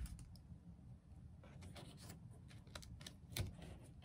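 Faint scattered clicks and light taps of paper and clear tape being handled and pressed down on a tabletop, with one sharper tap about three and a half seconds in.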